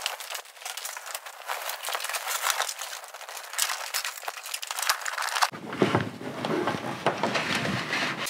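A wiring cable and a hand rustling and scraping against plastic trim and a rubber weather shield as the cable is fed through a narrow gap: a run of small crackles and rubbing, heavier from about five and a half seconds in.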